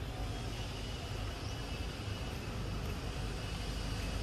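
Steady low rumble with a faint high hiss, unchanging throughout.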